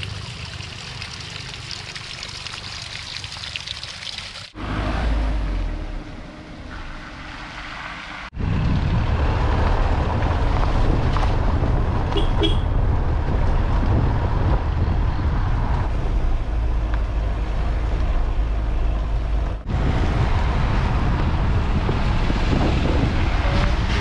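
Road and wind noise from a moving vehicle, in several stretches that cut in and out abruptly. From about eight seconds in it becomes a loud, steady low rumble. About twelve seconds in there is a brief horn toot.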